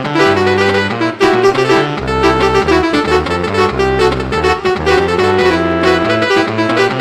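Basuri 'telolet' horn-style music: a reedy, brassy melody over chords and a sustained bass line.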